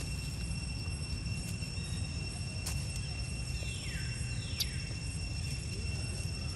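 Outdoor ambience: a steady high insect drone over a low rumble. About four seconds in come two short calls, each falling in pitch, and there are a couple of faint clicks.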